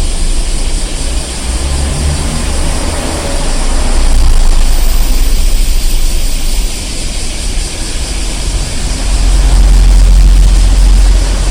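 Street traffic ambience: a steady low rumble of vehicle engines and tyres, swelling louder about four seconds in and again near the end as vehicles pass close by.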